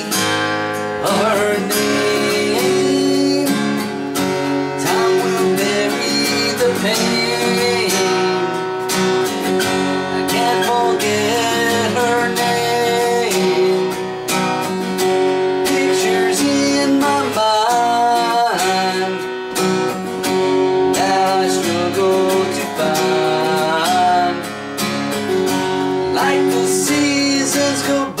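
Acoustic guitar strummed in a steady rhythm, playing the chords of a song.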